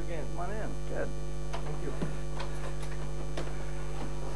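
Steady electrical mains hum, with faint distant voices and a few soft clicks beneath it.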